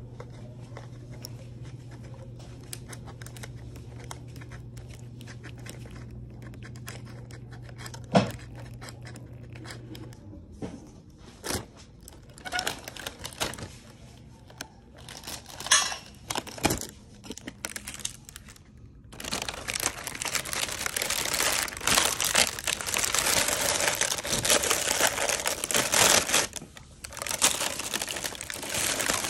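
Plastic packaging being crinkled and torn while a product is unwrapped, starting as scattered crackles and handling clicks and turning into continuous crinkling about two-thirds of the way in. A steady low hum stops about a third of the way in.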